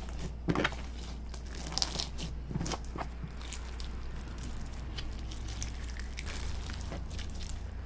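Hands kneading and squishing a beaded slushee slime, giving irregular crunchy clicks and crackles, over a steady low hum.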